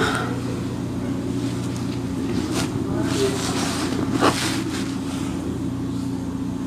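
Steady low mechanical hum with a layer of wind-like noise, broken by a few brief swishes about halfway through.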